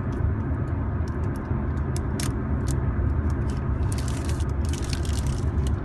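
Steady low road rumble inside a moving car's cabin, with scattered sharp clicks and a stretch of crackling about four seconds in from fingers prying and twisting at a plastic surprise egg.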